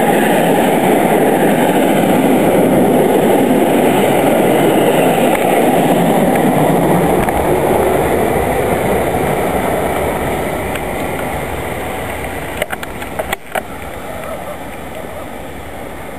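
Passenger train rolling past close by at speed, a loud steady rush of wheels on rail that fades away over the second half as the train leaves. A few sharp clicks come near the end.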